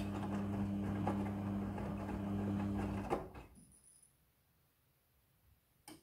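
Midea front-loading washing machine tumbling a wash load: a steady motor hum with the soft knocks and swishes of wet clothes turning in the drum. About three seconds in the motor cuts out with a click and the drum goes quiet, a normal pause in the wash cycle.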